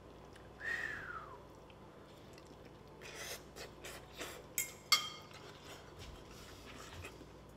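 A metal fork scraping and clinking against a ceramic bowl of spaghetti, with two sharper clinks that ring briefly near five seconds in. A short falling squeak comes about a second in.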